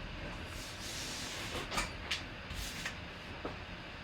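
Steady background hiss with a few brief, soft crinkles and taps about two seconds in, like cards or packaging being handled.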